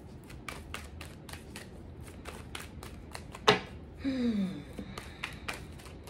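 Tarot cards being shuffled by hand: a run of soft taps and flicks, a few a second, with one sharper snap about three and a half seconds in. Just after the snap comes a brief falling hum from the shuffler.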